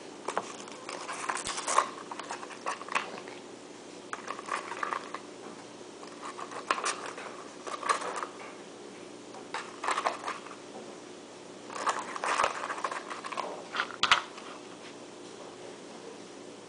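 Gun-cleaning kit parts (cleaning-rod sections, brushes and patch holders) clicking, clinking and scraping as they are handled, put back in their box and screwed together, in short scattered clusters over a faint steady hum.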